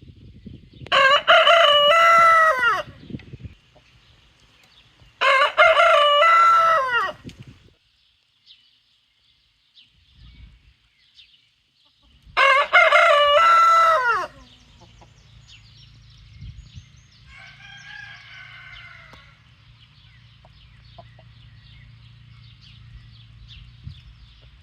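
A rooster crowing a full cock-a-doodle-doo three times, each crow about two seconds long and dropping in pitch at the end, followed by a fainter crow near the end.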